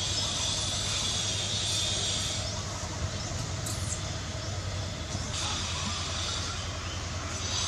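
Steady outdoor background noise: a low hum under a high hiss, with the hiss dropping out for a few seconds in the middle and coming back near the end.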